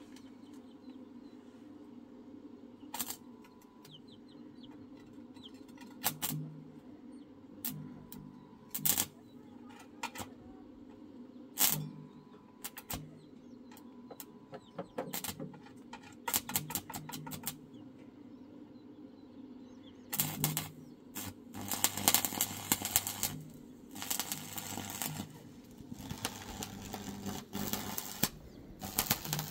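Electric arc welding with a small portable inverter stick welder: the arc crackles in short bursts as it is struck and broken again and again, then burns in a longer, steady, crackling run from about two-thirds of the way in.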